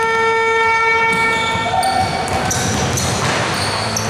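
Basketball game on a court: a ball bouncing, with two long, steady squeaks, the second higher and starting about halfway through.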